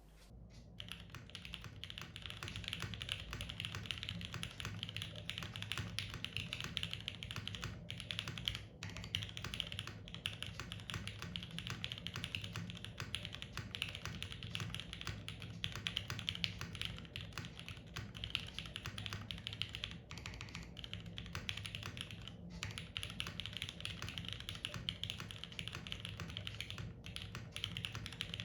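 Typing on a TGR Jane v2 CE mechanical keyboard with lubed Cherry MX2A Orange switches, GMK keycaps and a carbon fibre plate, heard through a camera's built-in microphone: a fast, continuous stream of keystroke clacks starting about half a second in.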